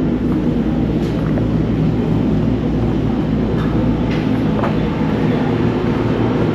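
Steady low rumble of a vehicle, with a few faint clicks.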